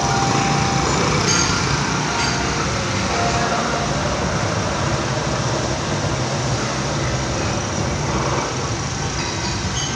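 Vertical milling machine running, its end mill cutting a metal block. The machining noise is steady, over a continuous low hum.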